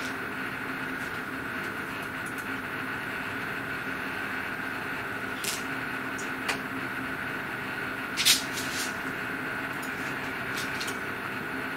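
Steady hum of an idle CNC router with its spindle stopped, holding two steady tones, broken by a few sharp clicks and taps from hands working at the machine, the loudest a little after eight seconds.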